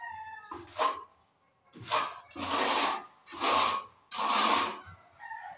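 Steel plastering trowel scraping across a wall as stucco is spread and smoothed, in about five rasping strokes of roughly half a second each.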